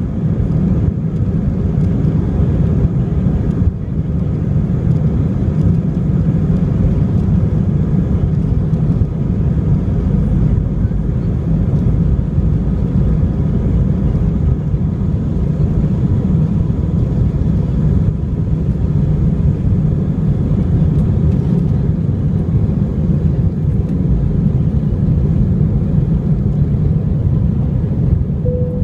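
Airbus A319 jet engines at takeoff power, heard inside the cabin: a steady, loud, low rumble as the airliner rolls down the runway and lifts off.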